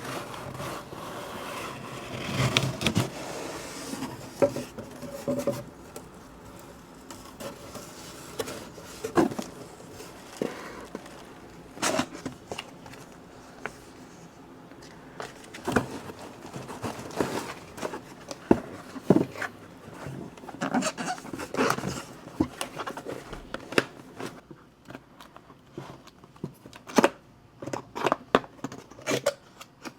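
Hands unpacking a subscription book box: irregular taps, knocks and scrapes with rustling and crinkling of cardboard and packaging.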